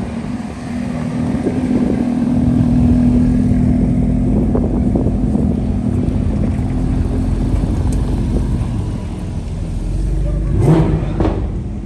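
Sports car engines running at low revs as a Ferrari convertible and then a Porsche 911 drive slowly past. About ten and a half seconds in, a brief rising engine rev is the loudest sound.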